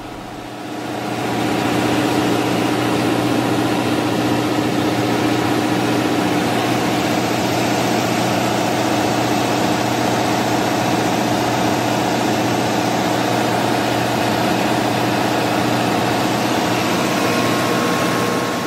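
Steady drone of running machinery in a ship's engine room: an engine hum holding a few constant tones over a wash of mechanical noise. It swells up in the first second or two and drops away near the end.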